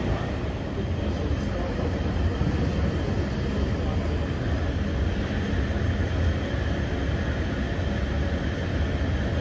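Steady low rumble of city background noise, even and unbroken, with no distinct events.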